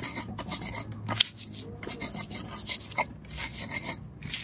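Stone pestle grinding against a flat stone cobek mortar, crushing coarse salt and chilies into a spice paste. The scraping strokes come about three a second, with one sharper knock about a second in.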